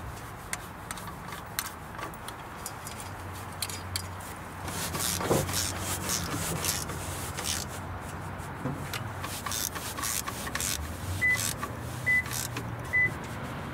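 3/8-inch ratchet clicking in irregular runs as nuts are run down onto bolts, over a steady low hum. Three short high beeps near the end.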